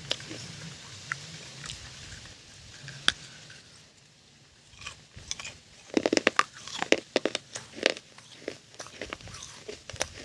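Close-miked biting and chewing of a crunchy food: scattered crunches, a short lull about four seconds in, then a dense run of loud crunches from about six seconds.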